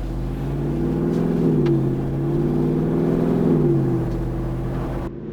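Jeep Wrangler Rubicon 392's 6.4-litre V8 pulling under acceleration: its note rises about a second in, holds, and eases back near four seconds.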